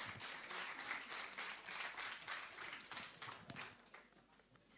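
Audience applauding with steady clapping that dies away about four seconds in.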